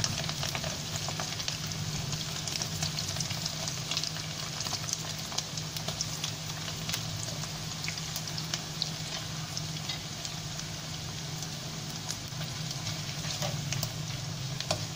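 Thin slices of boiled, pounded beef deep-frying in hot oil in a wok: a steady sizzle with many small crackles and pops.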